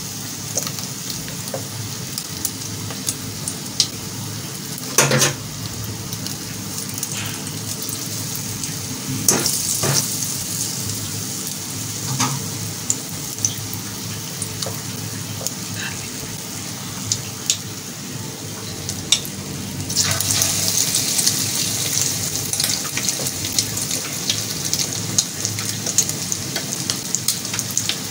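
Batter-coated boiled eggs deep-frying in hot oil in a wok: a steady sizzle dotted with crackles and pops, with a couple of short knocks in the first third. The sizzle grows louder and fuller about two-thirds of the way through, as a second battered egg goes into the oil.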